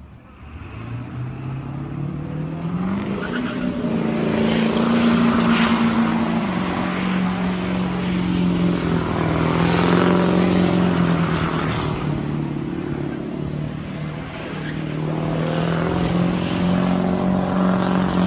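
Pickup truck engine revved up and held at high revs during a burnout, over the hiss of the spinning rear tires. The engine pitch climbs over the first few seconds, then stays steady with a couple of brief dips.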